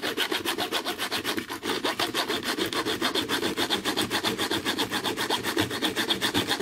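Hand sawing through the solid steel retaining clip of a lock cylinder, with rapid, even back-and-forth strokes of the blade.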